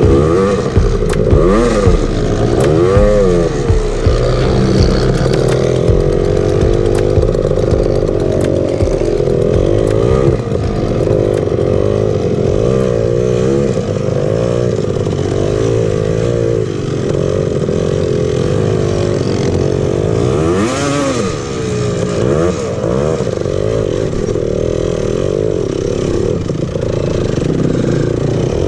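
Honda TRX250R's two-stroke single-cylinder engine running while riding, the revs rising and falling over and over, with occasional knocks and clatter.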